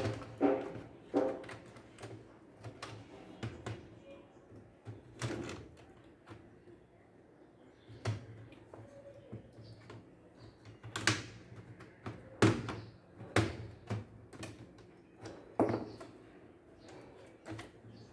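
Irregular clicks, taps and knocks from laptop parts being handled, with a few louder knocks in the second half.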